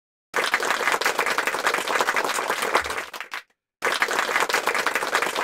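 Applause sound effect: a crowd clapping in two bursts of about three seconds each. Each burst starts and stops abruptly, with a short break of dead silence between them about three and a half seconds in.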